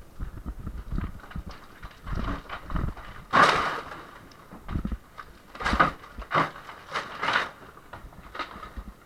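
Interior partition walls being broken down: irregular knocks and thuds, then several loud crashes of crumbling, falling masonry, the loudest about three and a half seconds in and three more close together later.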